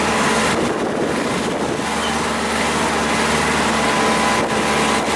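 A river boat's engine running steadily under way, a constant drone, with wind rushing over the microphone.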